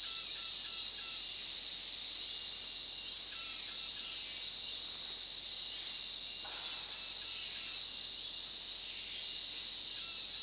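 Steady high-pitched chorus of insects, with short runs of quick chirps near the start and again about three and a half seconds in.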